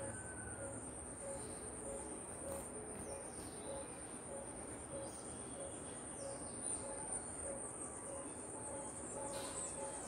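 Faint background bird sounds: a few brief high chirps over a steady high insect-like whine and a soft note repeated about twice a second.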